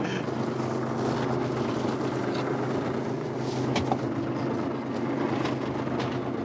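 Fishing boat's engine running steadily: a low, even hum, with a faint click about four seconds in.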